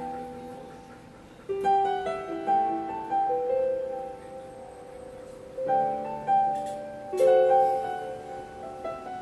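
Solo piano playing a slow melody over chords. A phrase of notes is struck about one and a half seconds in and another around six seconds, each note left to ring and fade.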